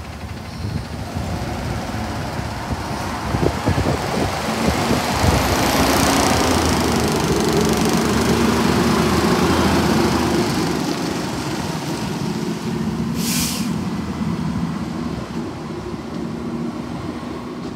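Autocar ACX Heil front-loader garbage truck running on natural gas as it drives past: its engine grows louder as it goes by and fades as it pulls away. A short hiss of air is heard about thirteen seconds in.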